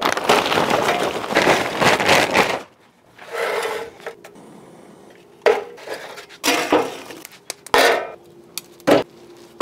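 Lump charcoal pouring from its bag into a metal chimney starter: a dense clatter of chunks for about two and a half seconds, then a shorter rattle. In the second half come a few separate knocks and clanks.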